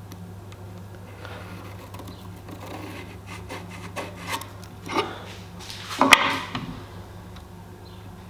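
Wooden pieces being handled and rubbed against each other, with a few sharp knocks, the loudest about six seconds in, over a steady low hum.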